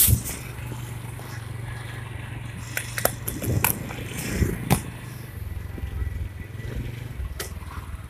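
Yamaha Jupiter Z motorcycle's 110 cc four-stroke single running at low speed under way, a steady low hum broken by a handful of sharp knocks. The knocks are the 'tak tok' heard when the throttle is worked, part of a rough running the owner traces to the clutch, possibly the clutch plates or clutch housing.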